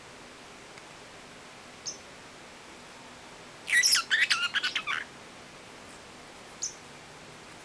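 Pacific parrotlet calling: a short high chirp about two seconds in, a loud burst of rapid chirping chatter lasting about a second around four seconds in, and another short chirp near the end.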